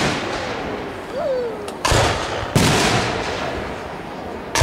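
Aerial fireworks shells bursting overhead: two loud booms about two seconds in, less than a second apart, each trailing off in a long echo, and another bang right at the end.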